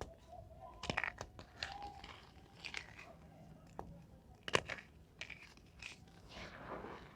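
Reformed gym chalk crunching and crumbling, with sharp crackling snaps scattered through and the loudest one about four and a half seconds in.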